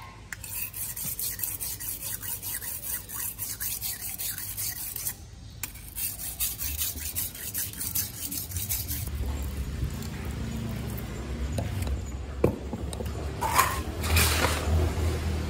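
Quick rhythmic scraping strokes, about four a second, in two runs with a short break about five seconds in, as eels are scrubbed clean of their slime. Later comes a low rumble, a single knock and a brief rushing sound near the end.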